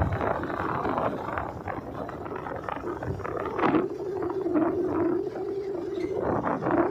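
Motorcycle riding along a road: engine and road noise with irregular rattles, and a steady whine that sets in about halfway through.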